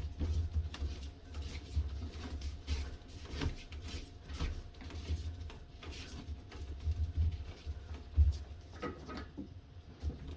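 Scattered clicks and knocks of plastic sink drain fittings being handled and fitted, over a low rumble of handling noise.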